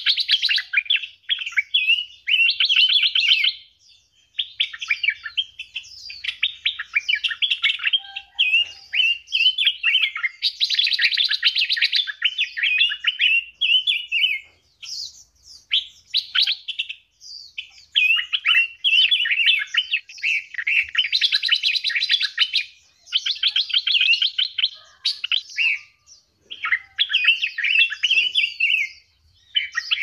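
Small caged songbirds singing almost without pause: long runs of rapid trills and warbling phrases, broken by a few short lulls.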